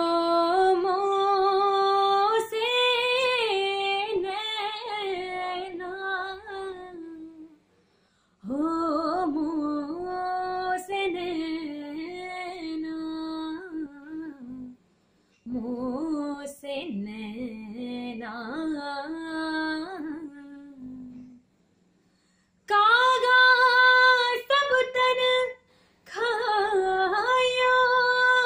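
A woman singing solo and unaccompanied: the opening of a Sufi kalam, in five long, drawn-out, ornamented phrases with short silent breaths between them.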